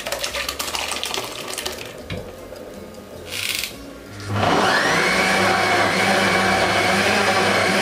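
Knocks and clatter, then a kitchen blender switched on about halfway through. It runs steadily and loudly, blending peppers, onions, garlic and ginger with water.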